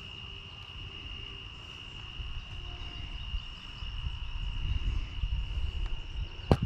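Steady, high-pitched insect chorus. Low rumble on the microphone builds in the second half, and there is one sharp click near the end.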